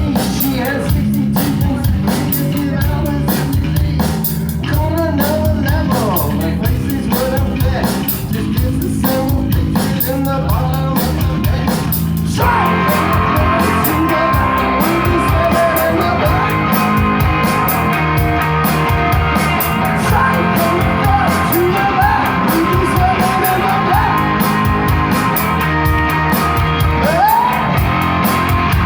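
A rock band playing live, with the sound filling out and getting fuller suddenly about twelve seconds in.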